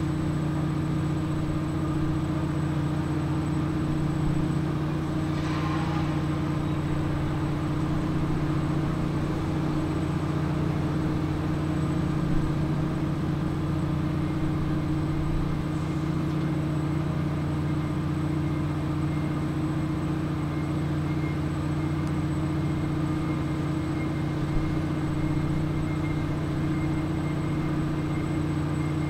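Steady low engine hum, running at a constant speed without change.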